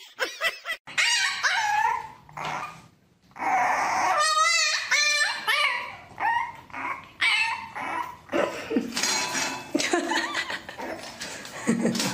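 Dog whining and yipping: high, wavering cries that come and go, with a short pause a little under three seconds in.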